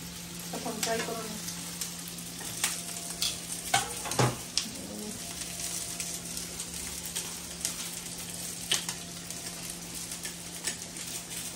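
Hot oil sizzling and bubbling in a pan on a gas hob, with scattered clicks of metal tongs and of a knife and fork on a plate, the sharpest about four seconds in. A steady low hum runs underneath.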